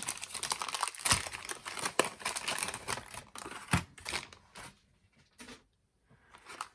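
Padlock packaging being crinkled and torn open, with a run of crackles and a few sharp snaps, going quiet about five seconds in.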